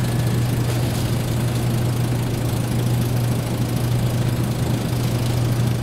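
Open refrigerated dairy case in a supermarket, its refrigeration running with a steady low hum.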